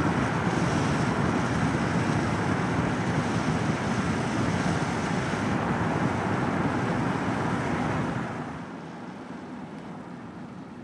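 Car driving along a road: steady tyre and wind noise, which dies down about eight seconds in.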